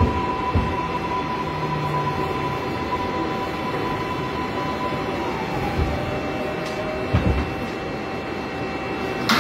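New York City subway car running, heard from inside: steady rumble and rail noise under a steady electric motor whine that drops in pitch about halfway through, with a few low thumps.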